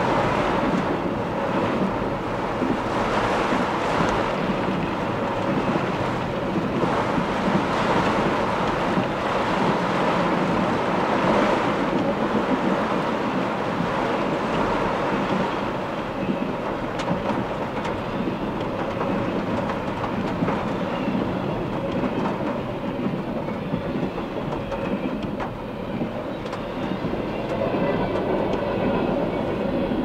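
Freight train of double-stack container cars rolling past a grade crossing, its wheels clattering steadily, heard from inside a car with heavy rain falling on it.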